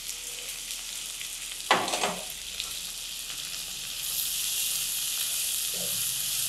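Chopped red onions sizzling and frying in butter in a kadai, the sizzle growing louder about four seconds in as a spatula starts stirring them. A single sharp knock sounds about two seconds in.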